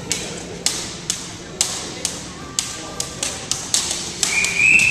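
Two long double-dutch jump ropes slapping the gym floor as they are turned, a sharp irregular clicking roughly two times a second that quickens toward the end. A loud high steady tone rises over it near the end.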